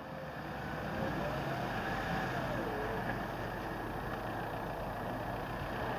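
Vehicle engines idling steadily with a low rumble: a New Holland tractor's diesel and the cars stopped behind it.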